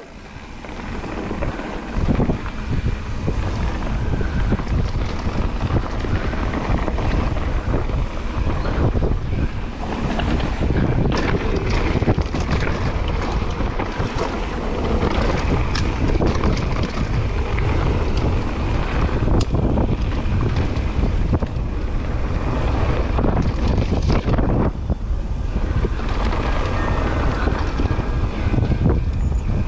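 Wind rushing over a body-mounted action camera's microphone as a mountain bike descends a dirt trail, with the tyres rolling over dirt and short knocks and rattles from the bike over bumps. The rush is quieter at first and louder from about two seconds in.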